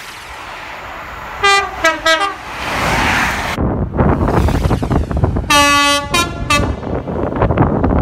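Two British diesel train horns in turn. A Class 43 HST power car's horn plays a quick run of short notes, then, after a cut, a Class 66 diesel locomotive's horn sounds a longer low note followed by short toots. The locomotive's rumble and wind on the microphone follow as it approaches.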